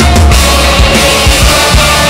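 Loud rock background music with drums.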